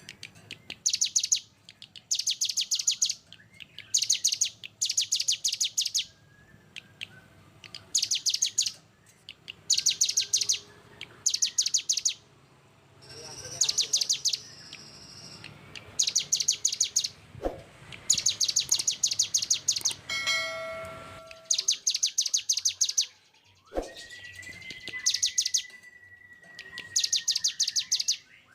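Songbird singing repeated bursts of rapid, harsh, closely packed high notes, the 'tembakan rapat dan kasar' (dense, harsh rapid-fire) phrases of a masteran recording. Each burst lasts about a second and comes every two seconds or so, with a few other short calls between them and one long steady whistle near the end.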